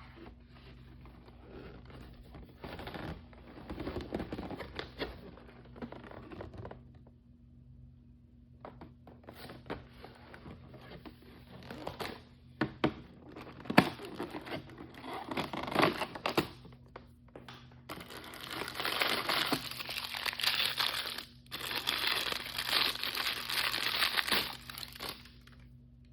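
Crinkly plastic toy packaging being handled and torn open by hand, in irregular rustles with a short pause about seven seconds in. The densest, loudest crinkling comes in the last third.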